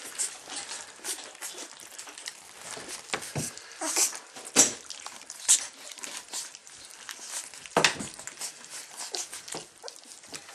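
A litter of young puppies squirming and scrabbling on soft bedding: irregular rustling and scratching, with a few louder scuffles around the middle.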